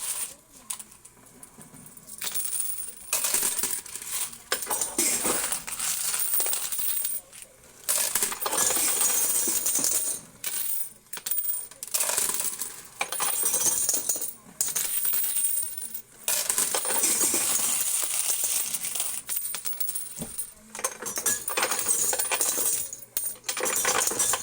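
Coins clattering in a coin pusher game: quarters dropping in and spilling and sliding against each other in long runs of dense clinking, broken by a few short pauses.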